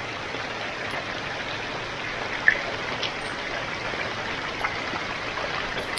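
Heavy rain falling steadily, an even hiss, with a brief sharp click about two and a half seconds in.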